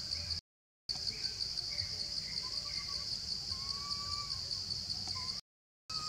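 A steady, high-pitched chorus of insects, pulsing finely, with faint short whistled calls under it. The sound cuts out completely twice for about half a second.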